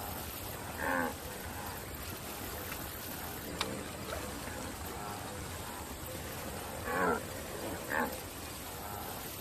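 Short, low animal-voice calls from a cartoon wildebeest: one about a second in and two close together near the end, over a steady soft background hiss.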